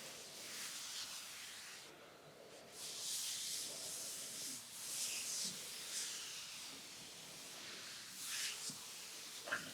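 Hands rubbing and sliding over bare skin during a back massage, a soft swishing hiss that swells and fades irregularly. A brief click sounds near the end.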